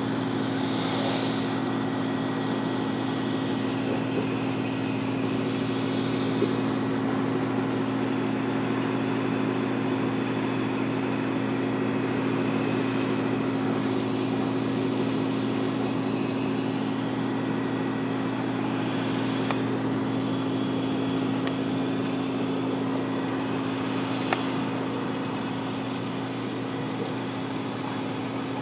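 Steady electrical hum of reef-tank pumps and filtration running, over an even hiss. A handful of brief high hissy swishes come every few seconds.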